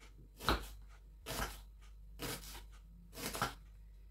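Kitchen knife slicing an onion into thin wedges on a wooden cutting board: four separate cuts, about one a second.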